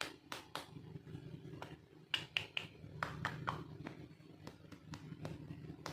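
Small plastic toy pieces being handled, with irregular light clicks and taps, a few of them followed by short squeaky falling tones about halfway through.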